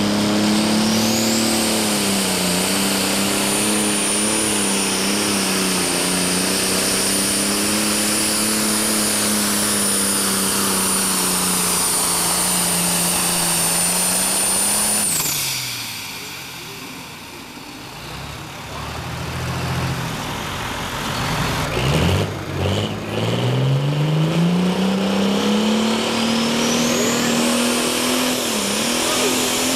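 Pro stock pulling tractor's turbocharged diesel engine running hard under load with a high whine, then throttling back about fifteen seconds in, its pitch and level falling away. Later a second pulling tractor's engine revs up, its pitch climbing, and holds steady.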